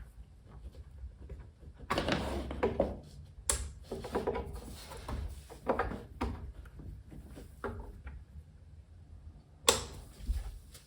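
Handling noises from rewiring a studio monitor: a power cord and an XLR cable being unplugged and plugged in, with irregular knocks, rustles and clicks and one sharp click near the end.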